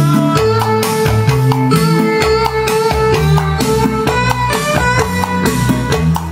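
Recorded music with plucked guitar-like notes and a drum beat, played back through JVC Victor wood-cone bookshelf speakers driven by a Luxman A3500 valve power amplifier.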